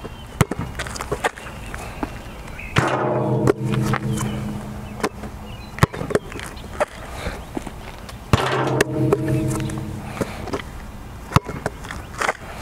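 A basketball bouncing hard on an outdoor asphalt court during a dribble-and-spin shooting drill, a series of sharp separate smacks. Twice, a steady low tone comes in for a second or two and is louder than the bounces.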